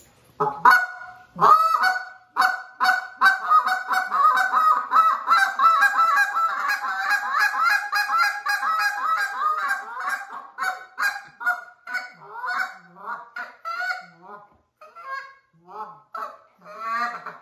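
A flock of Canada geese honking, many short calls overlapping in a dense chorus that thins out to scattered, lower calls after about ten seconds and picks up again near the end.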